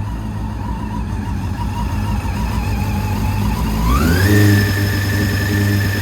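Honda CB400 Super Four's inline-four engine running through an aftermarket silencer, held at a steady raised speed, then revved up quickly about four seconds in and held at the higher revs.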